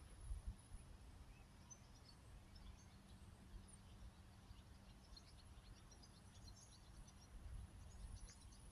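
Near silence with faint birdsong: many short, high chirps starting about two seconds in, over a low rumble.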